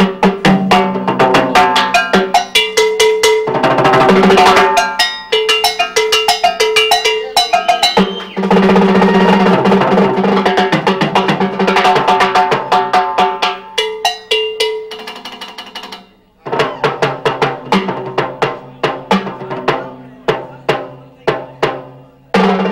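Timbales played solo with sticks: fast runs of strikes on the metal-shelled drums and long rolls, the heads ringing. There is a brief break about two-thirds of the way through, then sparser, spaced strikes.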